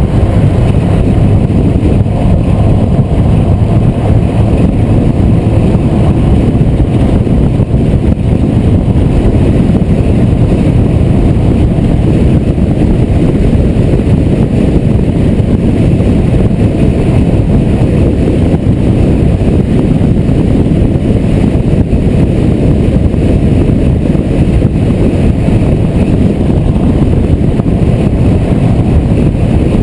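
Steady rumble of wind and tyre noise from a car driving at highway speed.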